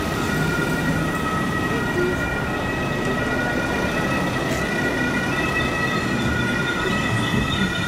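A pair of coupled diesel locomotives running slowly, with a low engine rumble under a steady high-pitched whine of several held tones.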